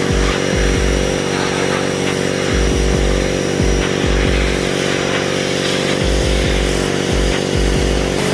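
Pressure washer running steadily, its jet rinsing sanding slurry off a wet-sanded car hood, with a low bass beat underneath.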